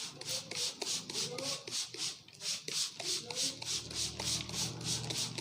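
A barber's hands rubbing briskly over a customer's hair and scalp during a head massage, in even rhythmic strokes at about four a second.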